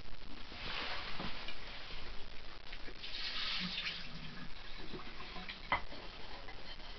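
Water running into a kitchen sink in two short spells, with a few light knocks.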